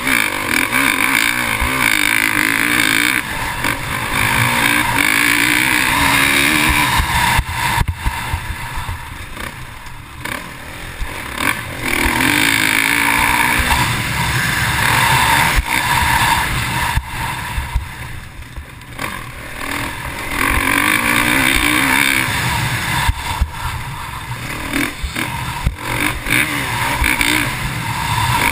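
Dirt bike engine heard from the rider's helmet, revving up through the gears and backing off again several times as the bike runs the track, with wind rushing over the microphone. The engine pitch climbs and falls in repeated surges, with brief dips where the throttle is shut.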